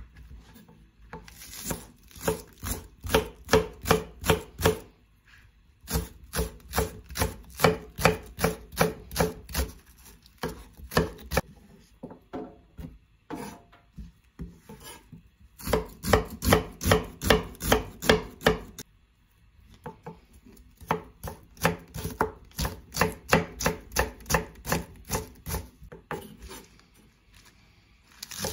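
Kitchen knife chopping vegetables on a wooden cutting board. It goes in runs of quick, even strokes, about four a second, with short pauses between the runs.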